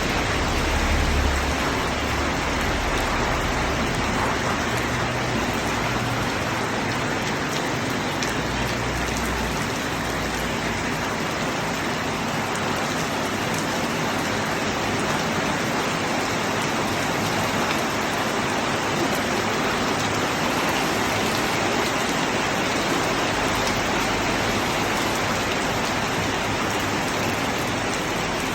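Steady rainfall, a continuous even hiss of rain falling on surfaces. A low rumble comes and goes underneath in roughly the first ten seconds.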